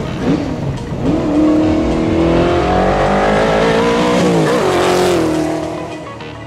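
Classic Ford Mustang's engine accelerating hard, its note climbing for about three seconds and then settling as the car passes and pulls away. A hiss of tyre noise comes near the peak.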